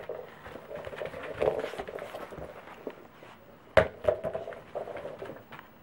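Hard plastic treat-dispensing toy being pushed and rolled across a wooden floor by a dog's nose, clattering irregularly, with one sharp, loud knock nearly four seconds in.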